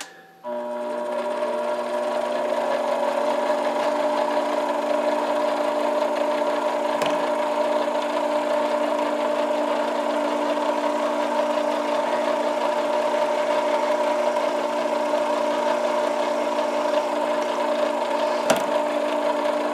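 Small benchtop metal lathe starting up about half a second in, its motor and gears rising to speed and then running with a steady whine while countersinking the end of an acrylic pipe-stem blank. Two brief clicks come through the running.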